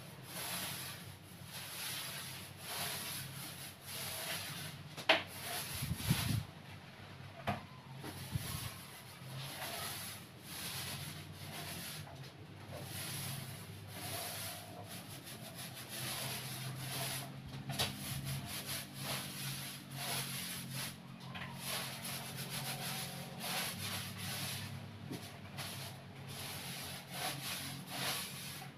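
Paint roller on a long extension pole rolling paint onto a wall: a rubbing swish in repeated back-and-forth strokes, with a few sharp knocks here and there.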